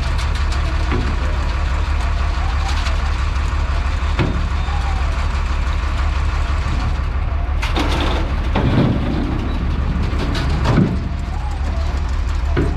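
An engine running steadily at idle, with a few short knocks and thuds.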